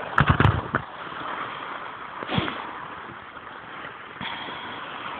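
Wind blowing across a phone's microphone as a steady hiss, with loud rumbling buffets in the first second and another shorter gust about two and a half seconds in.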